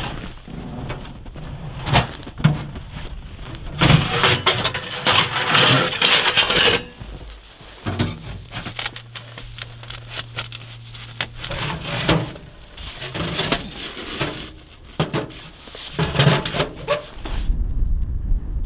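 Sheet-metal wood stove and stovepipe sections being handled and fitted together: repeated metal clanks and knocks mixed with crunching snow, loudest in a stretch of rough crunching about four to seven seconds in. Near the end this gives way to wind buffeting the microphone.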